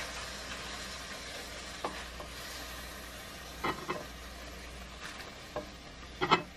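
Chicken breasts sizzling in a frying pan, a steady hiss that slowly fades, with a few short clinks and knocks of a utensil as the cooked breasts are lifted onto a plate.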